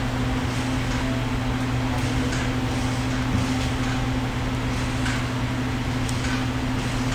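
Steady hum and hiss of running kitchen equipment, with a constant low electrical tone and a few faint ticks now and then.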